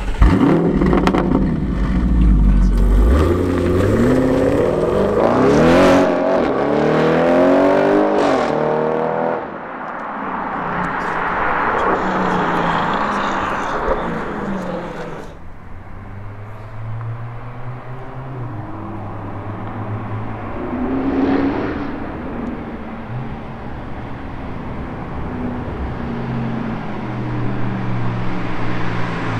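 Audi RS6 C7's twin-turbo V8 through an Akrapovic exhaust, revving hard in repeated rising sweeps for the first several seconds. It then accelerates away and settles to a quieter, steadier engine note, with one more rise about two thirds of the way through.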